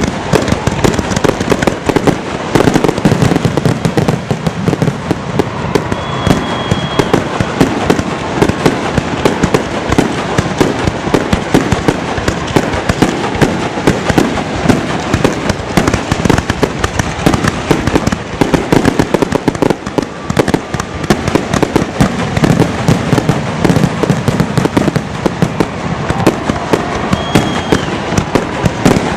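A fireworks display with shells bursting in rapid, continuous succession. There are dense cracks and booms with no gaps, as in a barrage or finale.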